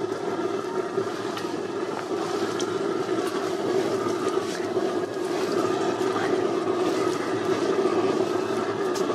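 Steady roar of a lit tandoor's fire, heard from over the oven's open mouth as naan dough is pressed onto its hot inner wall.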